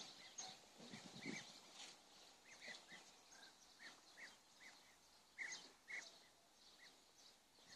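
Faint, scattered calls of a flock of European bee-eaters: short chirps every half second or so, with two louder ones a little past five seconds in.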